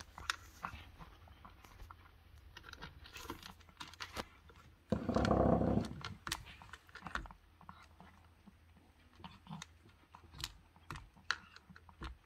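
Cat eating from a plastic bowl: a steady run of small wet clicks and smacks of chewing. About five seconds in, a louder sound lasts about a second.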